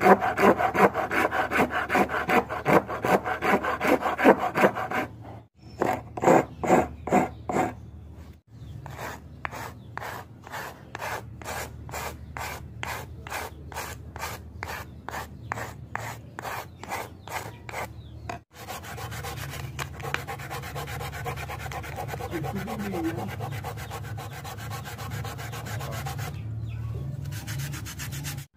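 Steel file and coarse rasp stroking across a wooden block, quick back-and-forth strokes at first, then slower, evenly spaced strokes about two or three a second. From a little past two-thirds of the way in, the strokes give way to a steadier rubbing, sandpaper being worked over the wood.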